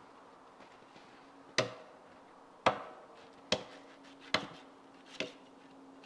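An axe chopping into a fallen deadwood log: five sharp blows, about one a second, some leaving a faint ring.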